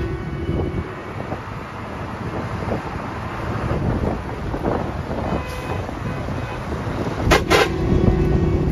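Ride noise inside a non-AC intercity bus on the move: steady engine and road rumble with wind through the open windows, and a brief loud burst of noise near the end.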